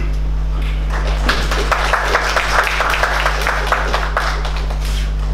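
Audience applauding, starting about a second in and dying away after about three seconds.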